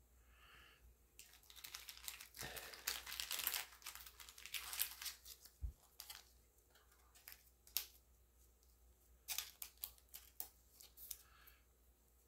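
Pokémon trading cards handled and shuffled between the fingers: rustling and crinkling with sharp clicks, busiest in the first few seconds, then a few scattered clicks.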